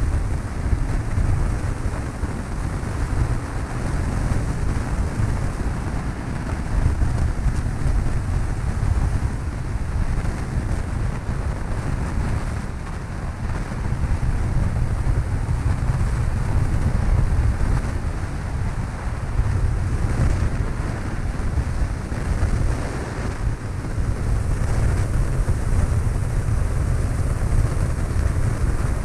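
Cabin noise of a Cessna 152 light aircraft: its four-cylinder Lycoming engine and propeller running steadily as a heavy low drone, with wind noise on the microphone.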